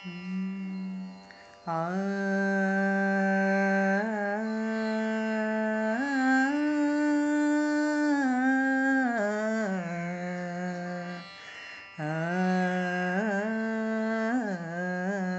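Carnatic-style devotional music introduction: a single melody of long held notes with sliding, wavering ornaments, in phrases broken by two brief pauses.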